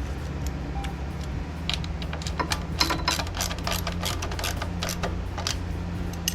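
Socket ratchet clicking in quick runs, tightening the 10 mm bolts that hold the carburetor on. A steady low hum sits underneath.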